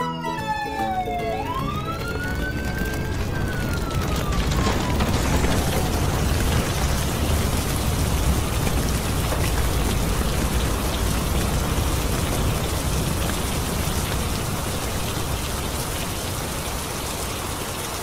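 Cartoon sound effect of a fire truck's water cannon spraying: a steady, dense rushing hiss of water that builds about a second in and holds. Over its first few seconds a single tone rises and then slowly falls away.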